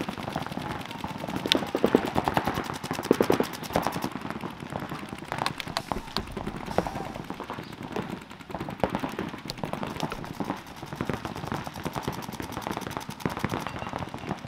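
Paintball markers firing rapid strings of shots, a fast, evenly spaced rattle for the first few seconds that thins to scattered single shots.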